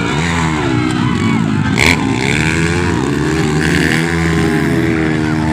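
Several racing dirt bike engines revving up and down as the bikes ride through a corner, their pitches rising and falling over one another, with a sharp click about two seconds in.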